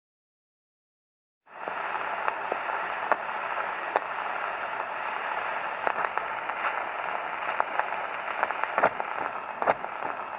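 A steady hiss with scattered crackles and clicks, starting about a second and a half in after silence.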